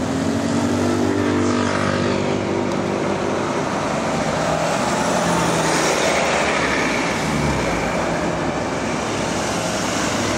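Close road traffic: a bus engine pulling away, its pitch climbing over the first few seconds, then more vehicles going by, including an ambulance with a low engine sweep as it passes.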